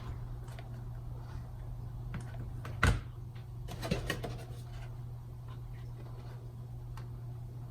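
Cardstock petals and the paper bud being handled on the work surface: a few light clicks and taps, the sharpest about three seconds in, over a steady low hum.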